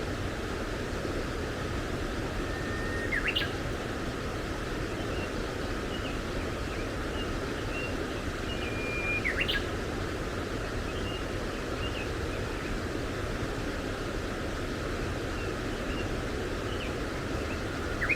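Birdsong over a steady rushing background noise: a songbird sings twice, each phrase a held whistle ending in a quick up-and-down flourish, with short chirps from other birds in between.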